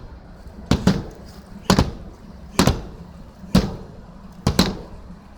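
Hammer blows from skylight replacement on a roof, about one strike a second with some coming in quick pairs.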